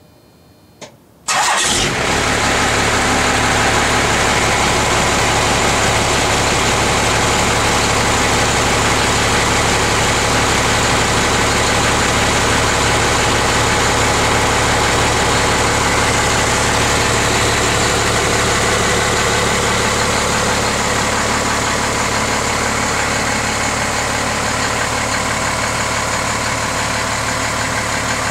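Cold start of a 1993 Dodge Ram 250's Cummins 5.9-litre 12-valve turbo diesel. A short click, then the engine fires almost at once and settles into a steady idle.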